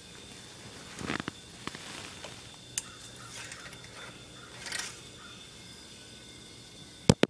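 Handling noise from hands working in an engine bay and the phone being moved: scattered rustles and light clicks, then a loud double knock near the end.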